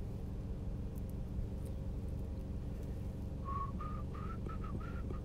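A person softly whistling a short run of notes, stepping slightly upward, in the last two seconds, over a steady low hum. Faint crinkles come from a foil booster pack being torn open and its cards pulled out.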